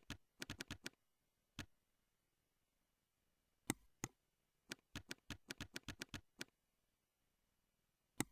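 Faint computer keyboard typing and mouse clicks. A quick run of keystrokes comes at the start, then scattered single clicks, then another run of about a dozen keystrokes around the middle, and one last click near the end.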